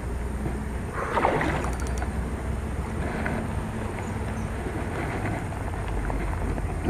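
Steady low wind rumble on the camera microphone, with a few brief soft noises about a second in and again near three seconds.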